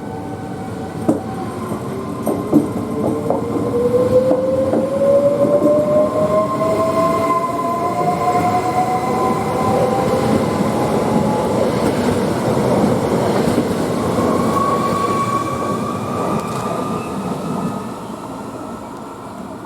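A train passing close by: a loud, steady rumble of wheels on the rails, with a few sharp clicks over rail joints in the first seconds. A whine rises slowly in pitch through the passage and dies away near the end.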